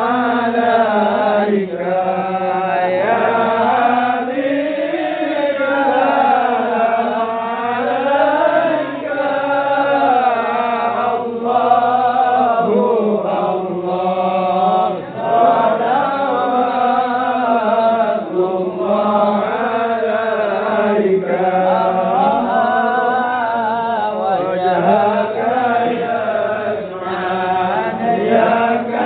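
A group of men chanting sholawat, a devotional song praising the Prophet, together, with one man leading on a microphone. The melody rises and falls without a break.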